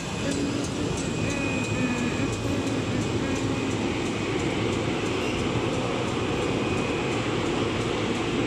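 Steady running noise of a chocolate coating line's cooling tunnel and conveyor belt.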